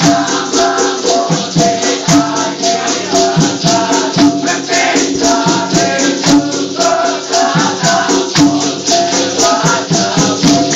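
Dikir barat music: voices singing over a fast, steady beat of maracas and hand percussion, about four strokes a second.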